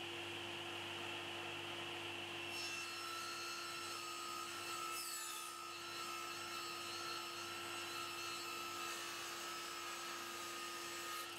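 SawStop table saw running steadily. From about two and a half seconds in, its blade rips along a strip of wood, adding a higher hiss and a wavering whine. The cut ends just before the close.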